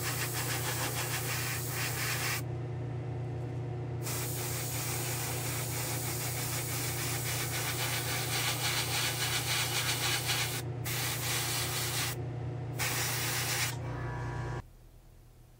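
Gravity-feed airbrush spraying black paint in a steady hiss over a low hum. The trigger is let off for about a second and a half a little over two seconds in, then twice more briefly later on. The spraying stops near the end.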